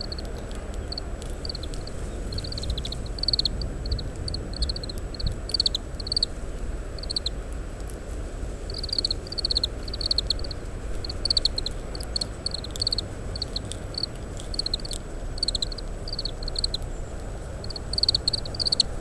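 Oriental greenfinches (kawarahiwa) giving their short chirping contact calls, a steady stream of high notes, often in quick runs of two to four, from several feeding birds, picked up close through a parabolic microphone.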